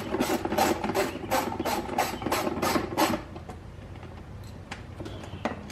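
Socket ratchet wrench turning a bolt on a dirt bike's body panels, its pawl clicking in quick strokes about three or four times a second, stopping about three seconds in. A few faint ticks and a sharp click follow near the end.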